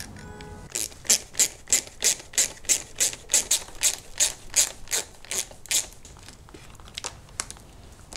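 Hand ratchet clicking in quick back-and-forth strokes, about three a second, while a bolt is tightened; the strokes stop about six seconds in.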